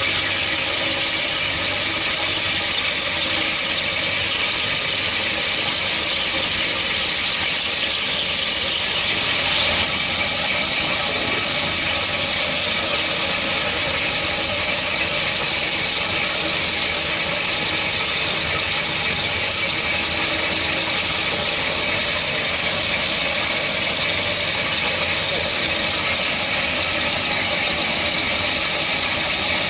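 Cormak G5025 metal-cutting band saw running, its blade cutting through metal with a steady, high-pitched hiss and held tones.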